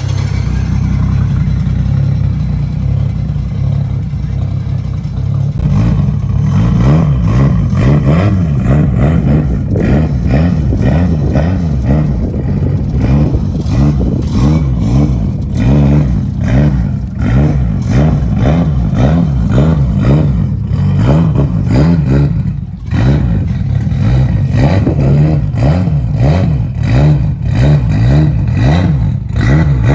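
Car engine running loudly, steady for the first five seconds or so, then its pitch rising and falling over and over as it is revved.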